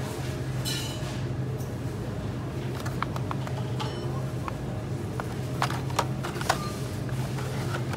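Hot Wheels blister cards clicking and rattling against one another and their metal pegs as they are flipped through by hand, with three sharper clacks in the second half, over a steady low hum.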